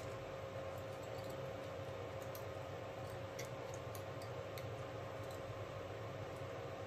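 Faint, scattered small clicks of thin copper wire ends being snipped with pliers and handled, over a steady low electrical hum.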